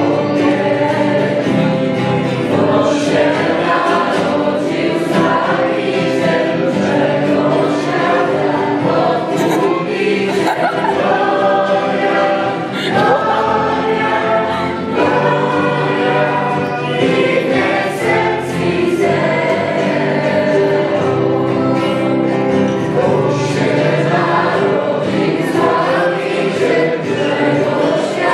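Choir music: several voices singing together in a steady song.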